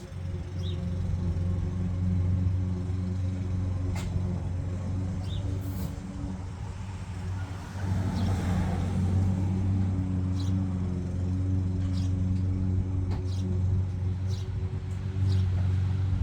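A steady low motor hum, with a few sharp light clicks and a brief rushing swell about eight seconds in.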